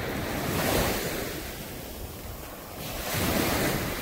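Small waves washing up onto the sand at the water's edge, the wash swelling twice.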